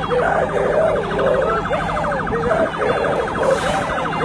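Emergency vehicle siren sounding in a fast, evenly repeating warble, with people's voices over it.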